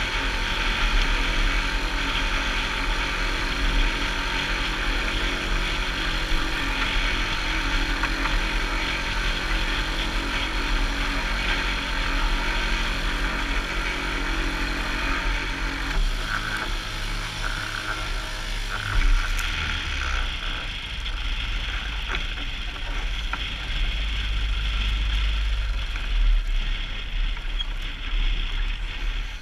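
Wind buffeting the microphone and water rushing along the hull of a small sailboat under sail in choppy water. A steady low hum runs under it and changes and fades about halfway through.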